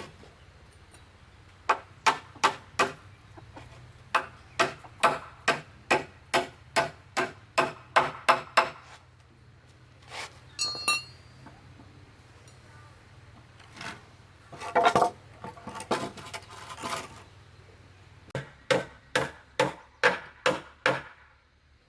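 Rapid strikes of a hand tool on wood, about two to three blows a second, in three runs, with a brief metallic ring between the first two runs.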